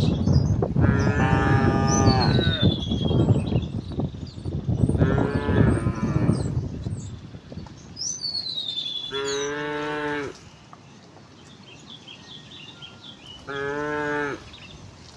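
Cows mooing: four long calls a few seconds apart, the last two shorter and clearer, with birds chirping.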